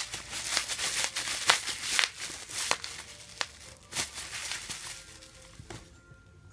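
Plastic bubble wrap being crumpled and squeezed by hand: a dense crinkling and crackling with sharp snaps mixed in, dying away about five seconds in.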